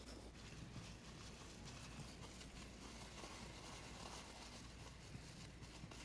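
Faint rustling and crinkling of a plastic mixing bag as the rubber-granule and styrofoam-bead roof-levelling compound inside is kneaded and shaken by gloved hands.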